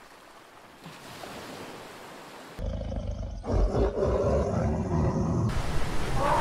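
A faint wash of sea water, then about two and a half seconds in a male lion roars, a deep, loud, pulsing call.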